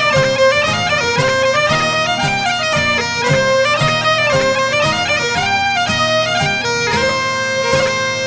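Instrumental break of a Scottish folk song: bagpipes playing a lively melody over a steady drone, with a regular beat about twice a second.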